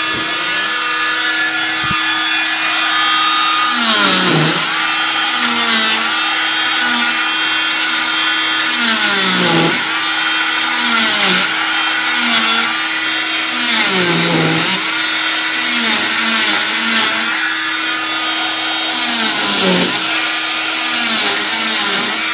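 Electric oscillating cast saw, fitted with a vacuum hose, running continuously as it cuts through a fibreglass cast: a steady high-pitched whine that sags in pitch and comes back up about four times, roughly every five seconds.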